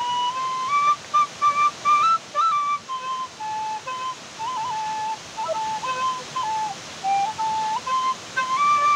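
A slow, simple melody on a flute-like wind instrument with a clear, pure tone: held notes stepping up and down, with a few short slides between them. A steady hiss lies underneath.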